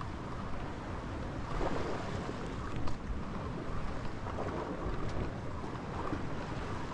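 Wind buffeting the microphone over a steady wash of calm sea against shore rocks, with one sharp click a little under three seconds in.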